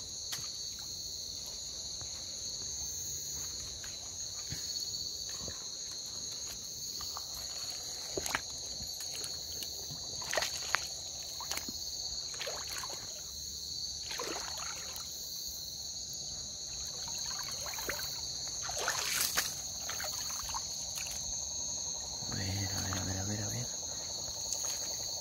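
Steady, shrill chorus of night insects such as crickets, holding two high pitches throughout, with a few brief sharp clicks scattered through the middle and a short spoken sound near the end.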